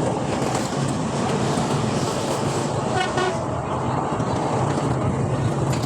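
Steady motor-vehicle running noise with a short horn toot about three seconds in.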